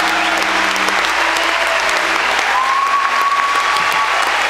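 Audience applauding at the end of a song.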